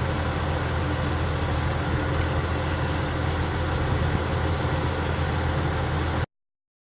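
Steady low drone of an idling engine, cutting off abruptly about six seconds in.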